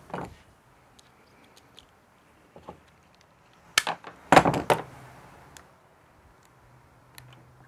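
Hands handling plastic RO tubing and quick-connect fittings: scattered small clicks and ticks, with a louder clatter of knocks about four seconds in.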